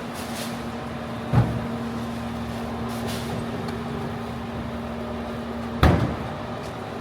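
Steady hum of street traffic with a constant droning tone, broken twice by a heavy thump, about a second in and again near the end.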